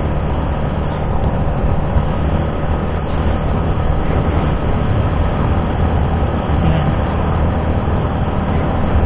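Yamaha Sniper 155's single-cylinder engine running at a steady cruise while riding, mixed with the rush of wind and road noise; the sound stays even, with no revving or shifting.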